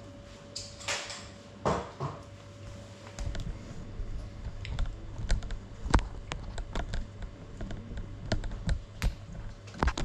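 Irregular light clicks, taps and knocks close to the grounded drone's camera, with a few louder knocks about two seconds in and near six seconds; the quadcopter's motors are not running.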